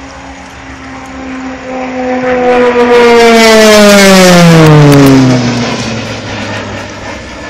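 An aircraft passing low overhead, its engine note falling steadily in pitch as it goes by. It is loudest about three to five seconds in, then fades.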